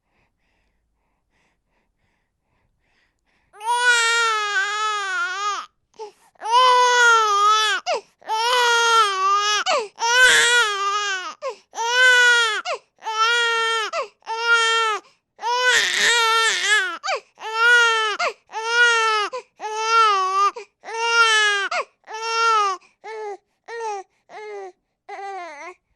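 An infant crying: after a few seconds of silence, a run of wails, each about a second long with brief catches of breath between, turning shorter and choppier near the end.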